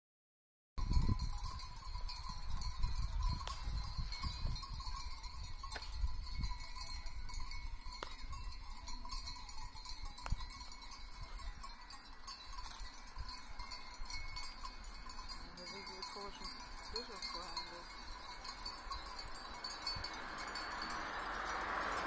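Many sheep bells clinking and ringing together across a grazing flock, a continuous jangle of overlapping bell tones that starts about a second in. An uneven low rumble runs under it through the first half.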